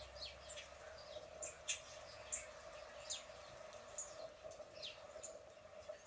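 Small songbirds chirping from a bird video played on a tablet's speaker: a quick, irregular run of short, falling chirps, several a second, over a faint steady hum.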